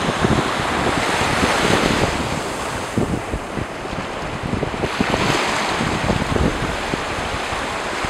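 Ocean surf washing on a beach, the hiss of the waves swelling about a second in and again about five seconds in, with wind buffeting the microphone in gusts.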